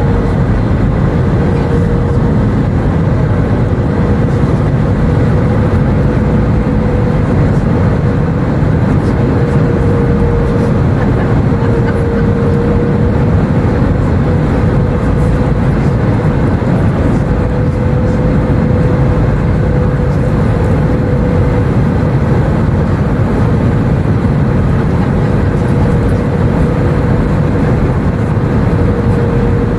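Steady rush of jet engines and airflow heard inside the cabin of an Airbus A319 airliner in flight, with a steady hum running through it.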